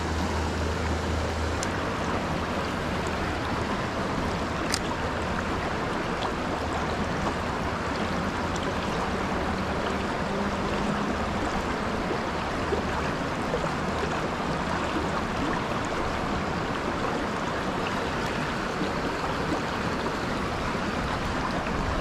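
Creek water running over a rocky riffle: a steady rushing.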